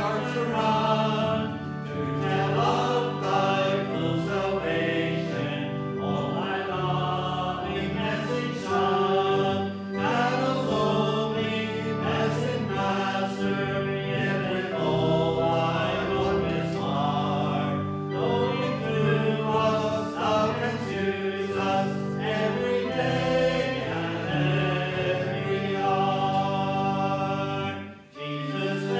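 Congregation singing a hymn or worship song with instrumental accompaniment.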